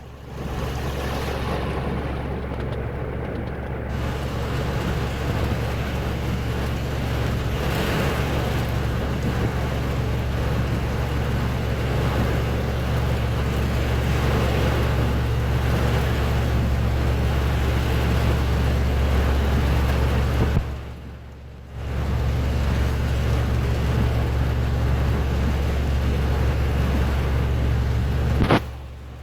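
Steady road traffic noise at a flooded intersection, with a heavy low rumble and a constant rushing hiss of tyres in water. The sound drops out briefly about two-thirds of the way through and again near the end.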